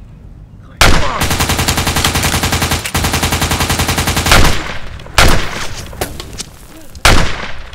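Machine gun firing one long, very rapid burst of about three and a half seconds, followed by a few separate gunshots near the end.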